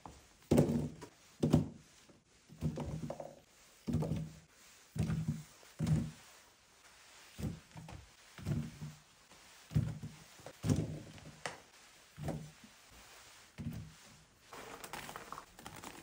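Whole tomatoes dropped one at a time into a wicker basket, landing on the weave and on other tomatoes with a soft thunk roughly every second, about fourteen in all. Near the end the thunks give way to a softer rustling.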